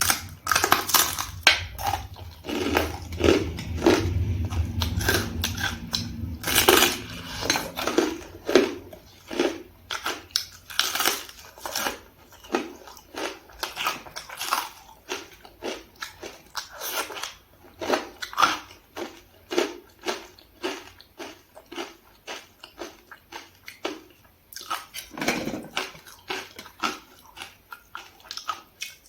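Close-miked eating sounds: a person biting and chewing food in a steady run of short chews, about one or two a second, with some crunch.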